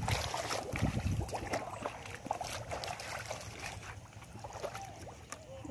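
Shallow water and mud in a flooded rice paddy splashing and sloshing as they are worked with a long-handled rake and gloved hands, with many small irregular clicks. Wind rumbles on the microphone, most strongly in the first second or so.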